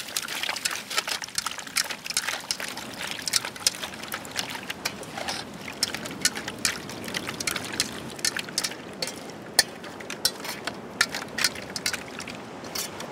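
Hands rubbing and washing salted sardines in water in a steel basin: irregular splashing and trickling with many small, sharp clicks.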